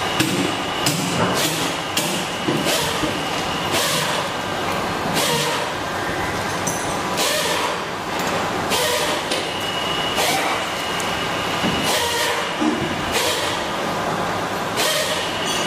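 Irregular knocks and clanks, about one or two a second, over a steady noisy background, as tools and parts are handled during repair work on a CNC router spindle.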